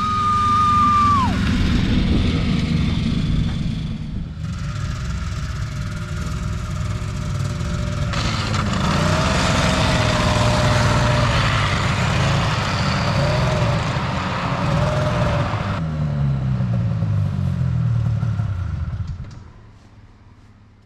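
Old snowmobile engine running at speed, its pitch rising and falling, fading away over the last few seconds.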